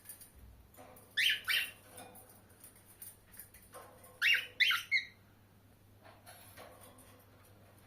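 Pet cockatiel giving short, sharp, high calls: two about a second in, then three more in quick succession around the middle.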